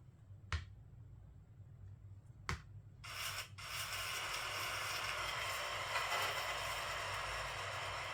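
Two light taps of a talking read-aloud pen on a book page, then about three seconds in a steady hissing sound effect starts playing from the pen's speaker.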